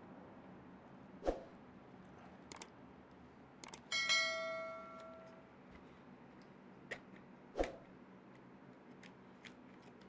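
Hands working a radio-controlled car chassis with hand tools: scattered small clicks and knocks of parts and tools being handled, and about four seconds in a metal tool or part strikes something and rings, dying away over about a second and a half.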